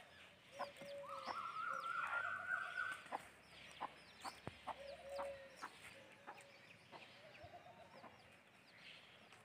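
Chickens clucking in short repeated calls, with one longer, drawn-out wavering call lasting about two seconds starting about a second in. Small birds chirp high above them throughout.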